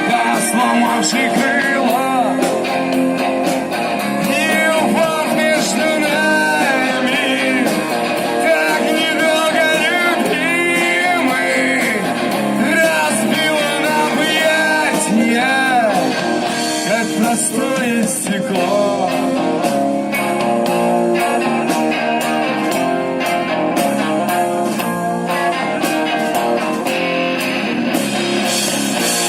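Live rock band playing an instrumental break: a lead guitar solo with bent, wavering notes over strummed rhythm guitar and drums.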